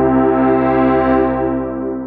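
Roland System-8 synthesizer playing a Jupiter-8 preset: a held chord whose harmonics pulse rapidly, the tone growing brighter toward the middle and then duller again.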